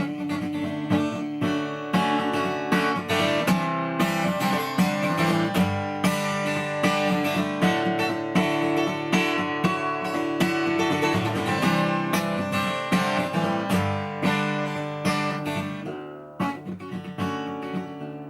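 Acoustic guitar strummed in a steady rhythm: an instrumental break between sung verses of a song. It briefly drops back about three-quarters of the way through, then picks up again.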